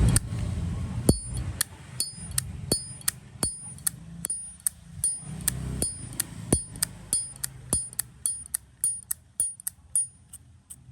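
Zippo lighter's lid flicked open and snapped shut over and over, about two to three times a second, each stroke a sharp metal click with a high, clear ring. It is the crisp, ringing action that is prized in a genuine Zippo.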